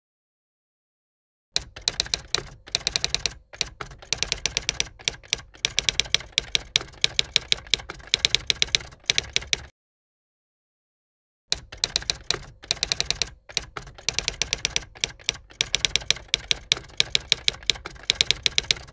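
Typewriter sound effect: rapid runs of key clicks as text is typed out, broken by two silent pauses of nearly two seconds, one at the start and one about halfway through.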